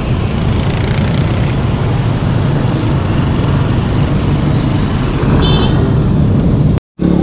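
Street traffic noise and wind rumble on a handlebar-mounted camera's microphone while cycling, with motorcycles and tricycles passing. A brief high beep about five and a half seconds in, and the sound cuts out for a moment near the end.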